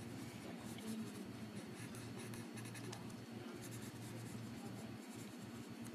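Pencil sketching on paper: a run of faint, quick strokes as thin lines are drawn in.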